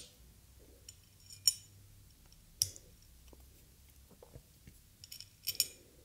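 Sparse small clicks and taps of metal screws being handled and turned in a CPU-cooler backplate bracket, the loudest about a second and a half in and a few more near the end.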